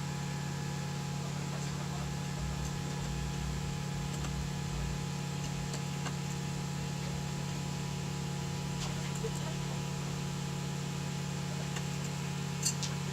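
Steady low mechanical hum, unchanging throughout, with a few faint clicks and taps.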